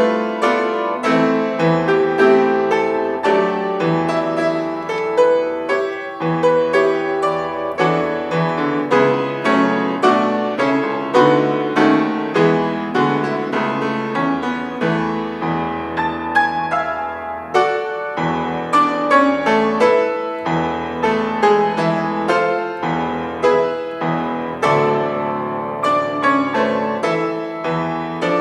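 Solo piano playing a continuous, flowing piece with many struck notes and chords.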